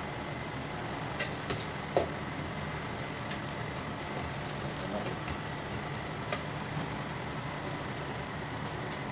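A steady low rumble, with a few sharp clicks and taps of a metal utensil against an aluminium pot as carrots and tomato paste are stirred. The loudest clicks come about two seconds in and again past the six-second mark.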